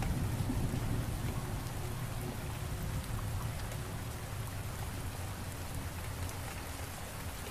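Steady rain falling, with a low thunder rumble underneath that slowly dies away over the first few seconds.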